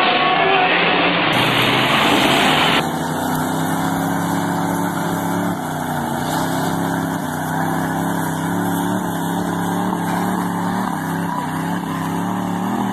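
A loud arena din for the first few seconds. Then, after a sudden cut, lifted pickup trucks' V8 engines run hard at high revs as a steady drone whose pitch wavers slightly.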